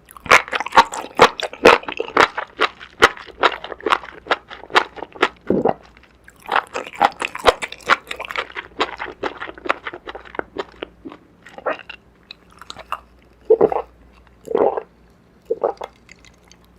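Close-miked chewing and crunching of food, from a meal of noodles, seasoned green onion and enoki mushrooms. Dense, crisp crunches fill the first half, then the chewing thins to separate, sparser bites.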